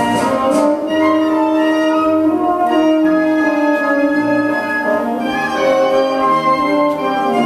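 Orchestral music with long held notes and a moving melody.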